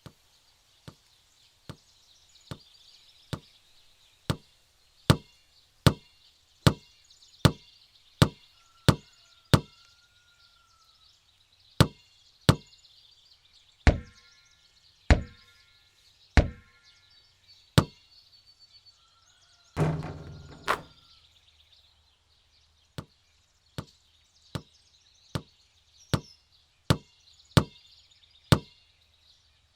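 A basketball bouncing repeatedly on a hard court, about one bounce a second, the bounces coming faster in places. About twenty seconds in comes a louder, longer rattling impact, and faint birdsong runs underneath.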